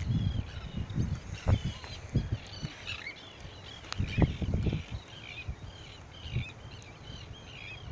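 A flock of birds calling, many short chirping calls overlapping several times a second, with gusts of wind buffeting the microphone.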